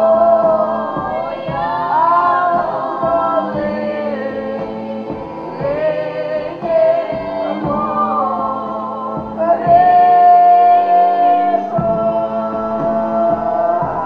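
Live Ukrainian folk ensemble: male and female voices singing together in gliding, held lines over repeated drum strokes and a low sustained tone. A long held high note a little past the middle is the loudest part.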